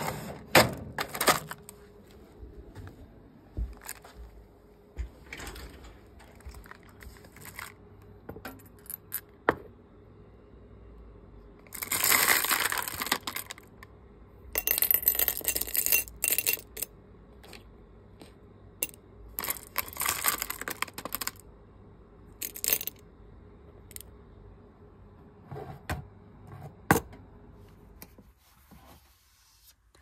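Small corked glass vials clinking and rattling against each other as they are dropped and handled in a bowl. There are three longer bursts of clatter, about twelve, fifteen and twenty seconds in, with scattered single clinks between.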